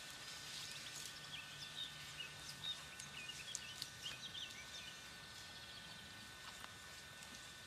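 Faint birdsong: small birds chirping and twittering in a quick run of short high notes during the first few seconds, over a soft outdoor hiss with a few light clicks.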